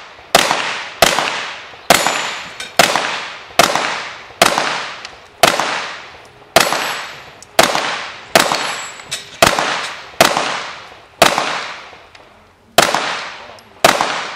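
Glock pistol firing a long string of single shots, about one a second, each shot followed by a decaying echo. About fifteen shots, with a slightly longer pause between the last few.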